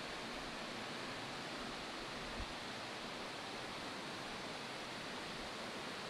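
Steady rushing of Shiraito Falls, hundreds of small streams of water pouring from a curved cliff about 20 m high.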